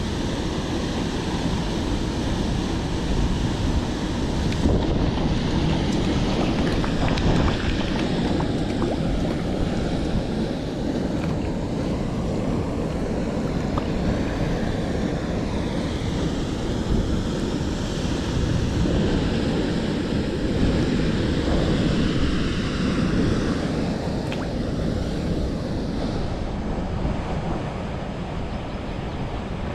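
Steady rush of water from a waterfall pouring into a river pool, with wind buffeting the microphone.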